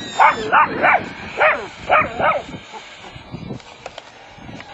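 Dachshund barking in short, high yips, about six in quick succession, then falling quiet about two and a half seconds in.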